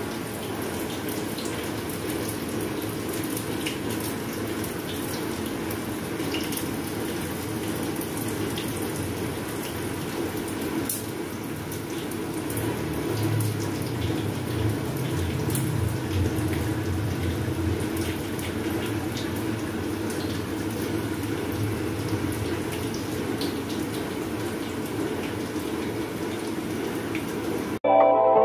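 Steady rushing noise of water running, like a kitchen tap, with a few faint clicks. Music starts abruptly near the end.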